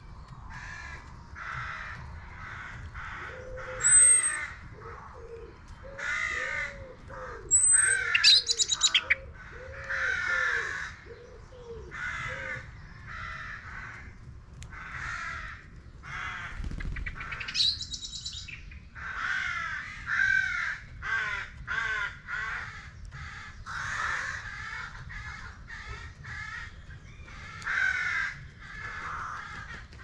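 Crows cawing over and over, short calls in quick runs, with a small songbird's high thin calls and a brief trill now and then.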